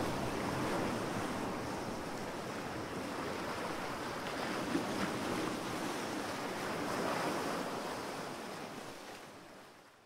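A steady rushing like ocean surf, swelling slowly and fading out near the end.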